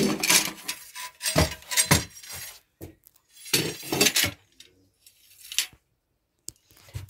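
Hard objects clinking and clattering as they are handled, in a series of short knocks with quiet gaps between them.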